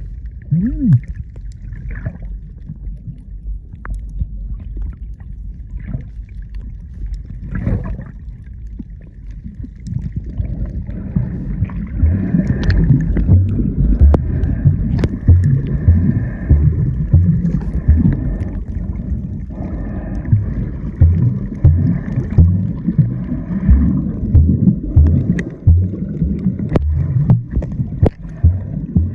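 Muffled water noise picked up by a phone microphone held underwater: a steady low rumble and gurgling with scattered faint clicks. About ten seconds in, a run of low thuds at about two a second sets in and carries on.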